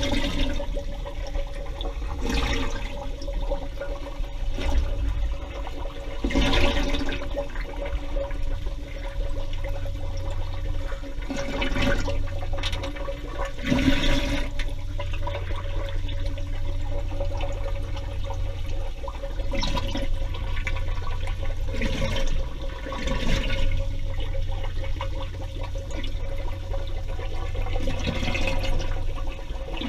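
Underwater recording of scuba breathing: a rush of exhaled regulator bubbles every few seconds, over a steady low rumble and a constant hum.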